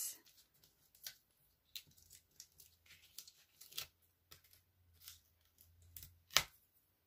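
Small paper release backings being peeled one after another off foam adhesive dimensionals on a cardstock layer: a scatter of faint crackles and ticks, with one sharper click about six seconds in.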